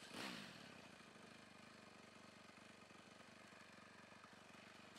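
TVS Apache motorcycle's single-cylinder engine idling faintly and steadily, its revs falling back to idle in the first half second.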